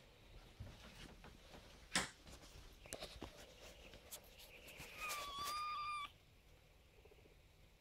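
A kitten gives one drawn-out meow about five seconds in, lasting about a second and cutting off sharply, after a few faint knocks.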